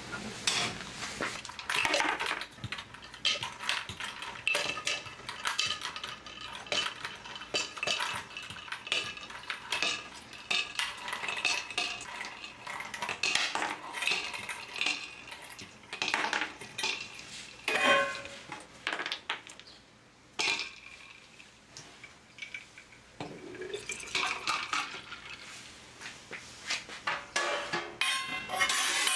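Kitchen utensils clinking and scraping against dishes and pots, many short knocks and clinks in a row, quieter for a few seconds past the middle.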